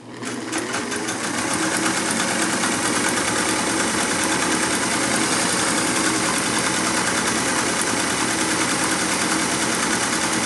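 Singer 192K Spartan sewing machine sewing at a steady speed, with a fast, even stitching rhythm. It builds up to speed over the first second or so.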